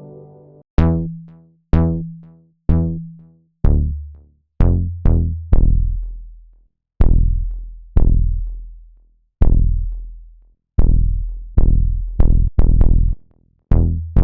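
Software synthesizer preset playing a string of single percussive drum-machine-style hits, each struck sharply and dying away quickly. The first few are pitched higher, then the hits drop into a deep bass and come faster toward the end.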